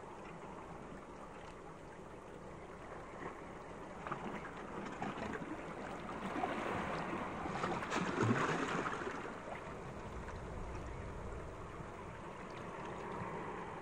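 Sea water washing and trickling, swelling for a few seconds around the middle with a fine crackle, then easing back.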